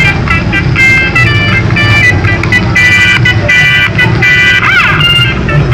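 Music: a melodic tune of short, changing notes over a steady low rumble, with a brief wavering glide in pitch near the end.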